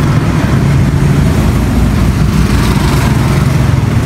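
A motor or engine running steadily, a low, even hum that holds the same pitch and loudness throughout.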